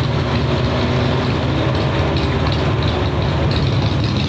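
Vehicle engine idling steadily with a low, even rumble.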